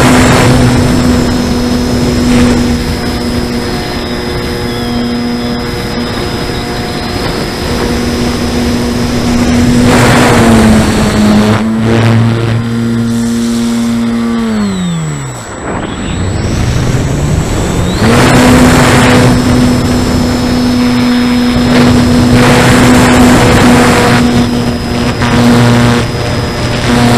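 Electric motor and propeller of a Parkzone S.E.5a RC model biplane, heard from an on-board camera: a steady whine with gusts of wind rushing over the microphone. About halfway through the throttle is cut and the pitch falls away almost to nothing, then winds back up to full a couple of seconds later.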